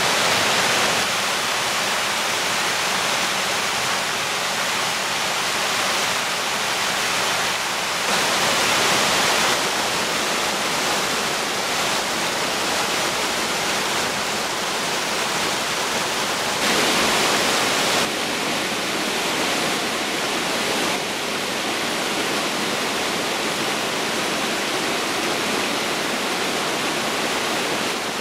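Mountain creek rushing and splashing over rocks in small cascades and a little waterfall: a steady, full rush of water that steps slightly louder or softer at a few abrupt points.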